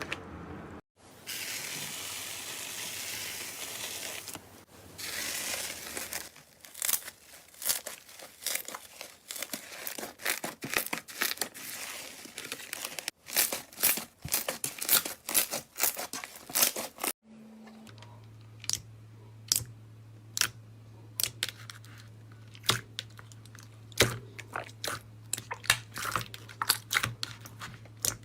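Slime being squeezed, stretched and pressed by hand, making many sharp sticky clicks and pops. A steady hiss sits under the first few seconds, and a low steady hum under the last part.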